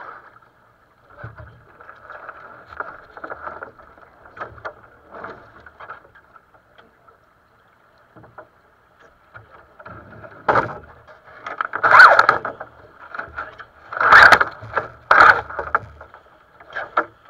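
Water splashing against the hull of a sailing dinghy under way, in irregular bursts that become louder and sharper from about ten seconds in.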